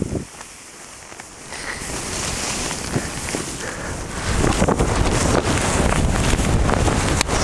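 Wind buffeting the microphone as a skier sets off down a snow slope, mixed with skis sliding through snow. It starts quiet after a short knock, builds about a second and a half in, and turns loud and rumbling about four seconds in as the skier gathers speed.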